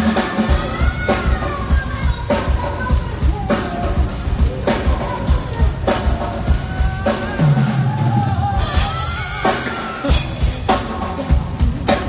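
Live pop band playing through a PA: drum kit keeping a steady beat under guitar and keyboards, with a woman singing the lead melody into a microphone.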